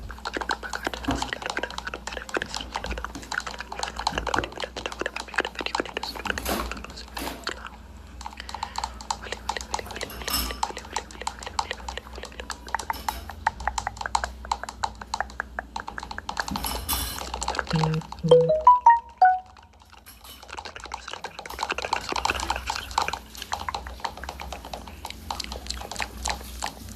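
Commercial sound-effects track of dog sounds over rapid clicking and crackling. Just past the middle there is a short, loud run of electronic blips stepping up and down in pitch.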